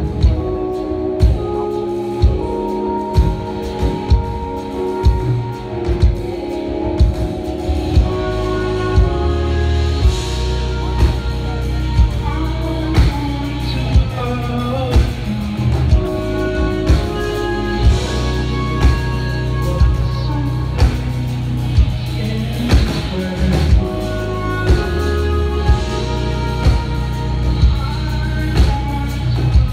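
Live jazz-fusion band playing: a trumpet melody over keyboards, electric bass and a drum kit, with a heavy drum hit on a slow beat about once a second.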